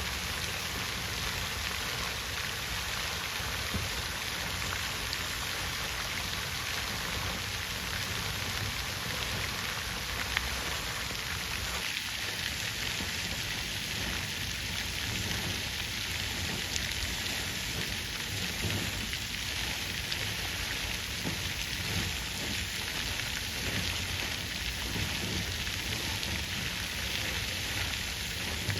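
Water fountain running: steady splashing of falling water, with small drops ticking here and there.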